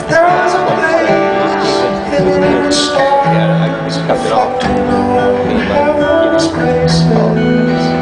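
Two acoustic guitars played live as a duet, picked and strummed in a steady flow of notes.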